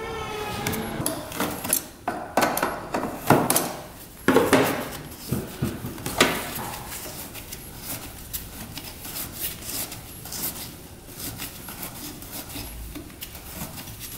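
Wrench working the rusted original bolts on an ATV's metal airbox lid: loud metal clinks, knocks and scrapes in the first few seconds, then a run of lighter, quicker clicks. The bolts are seized and hard to turn.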